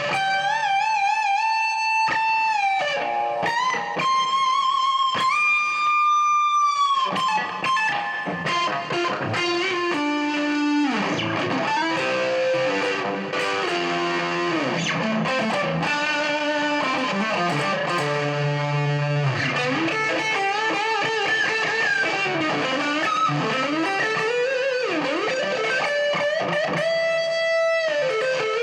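Career Les Paul-style electric guitar played through distortion. It plays a lead line: long held, bent notes with vibrato over the first several seconds, then quicker runs of notes.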